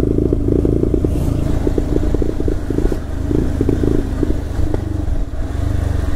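Bajaj Pulsar 220F's single-cylinder engine running at low speed with a fast clattering rattle that comes and goes. This is typical of the worn-out, slack drive chain and sprocket, which the rider says could come off at any speed.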